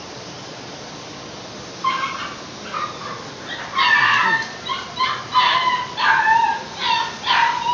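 A dog giving short, high-pitched barks over and over. The barks start about two seconds in and come faster and louder toward the end, over steady background noise.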